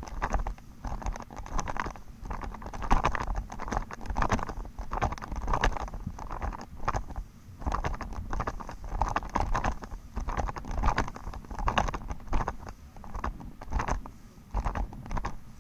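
Walking footsteps on grass in a steady rhythm, with the nylon of a bundled paraglider wing rustling against the body at each step. A low rumble runs underneath.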